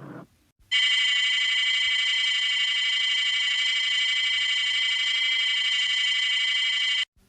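Cartoon sound effect of an alarm bell ringing continuously, a steady metallic ring that starts abruptly about a second in and cuts off sharply near the end.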